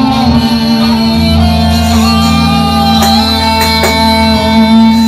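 A live band playing an instrumental passage of a worship song, with guitar and long held chords, and two sharp percussive hits about three and four seconds in.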